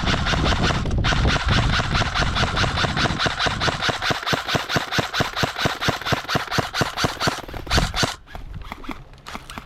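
Airsoft rifle firing a long full-auto burst: a fast, steady string of shots that pauses briefly about a second in, runs for several seconds, and stops near the end.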